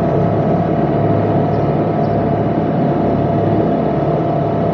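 Sailing yacht's inboard engine running steadily during low-speed marina manoeuvring, a constant hum with a few steady tones.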